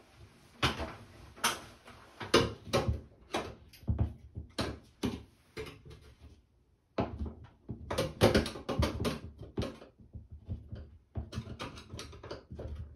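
Old sheet-metal bathroom exhaust fan housing being pried and worked loose from the ceiling with a screwdriver: irregular metallic knocks, rattles and scrapes, pausing briefly about six seconds in before starting again.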